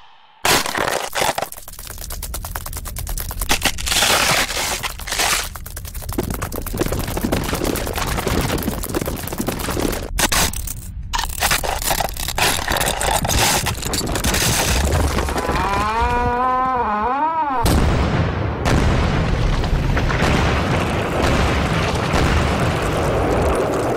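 Film sound effects: dense crackling and clicking over a low rumble, with a short wavering pitched call about two-thirds of the way through, after which the rumble thickens.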